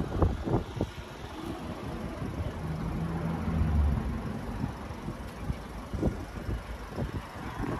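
Wind buffeting and handling noise on a handheld phone microphone, with a vehicle engine running as a low rumble through the middle for a second or two.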